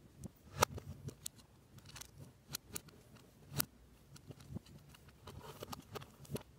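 Lego Technic plastic parts clicking and snapping as they are pressed together by hand, with light rattling of loose pieces between. Two clicks stand out, about half a second in and about three and a half seconds in.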